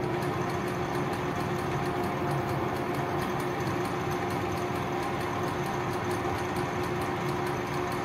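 Craftsman 12-inch metal lathe running free at steady speed, chuck spinning and not cutting: an even motor and drive hum with a constant tone.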